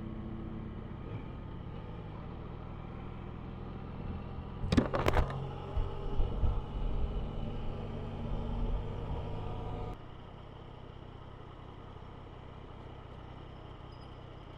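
Motorcycle running with steady engine and road rumble, broken by a few sharp knocks about five seconds in and uneven bumps for several seconds after, then dropping suddenly to a quieter steady hum.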